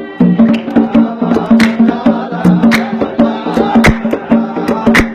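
Instrumental passage of Arabian dan folk music: hand drums strike a steady maqsum rhythm, several strokes a second, over sustained melodic notes.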